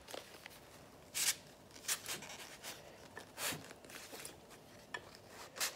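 Cardboard packaging of a set of throwing knives being handled and slid open: a few short, faint scrapes and rustles of card rubbing on card.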